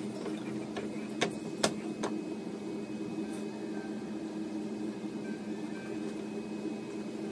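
A steady low hum, with three sharp clicks between about one and two seconds in: maple and mahogany end-grain strips knocking together as they are pushed into a checkerboard.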